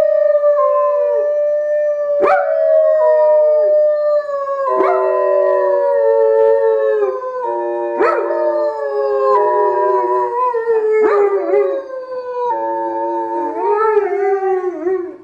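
German shepherds howling together: several long, overlapping howls at different pitches, each sliding downward, with a few short sharp yelps breaking in. The howling cuts off abruptly at the end.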